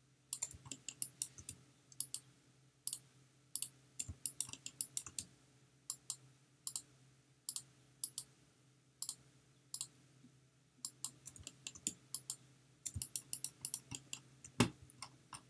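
Computer mouse button clicking: dozens of sharp single clicks in quick, irregular runs, as mesh edges are picked one after another.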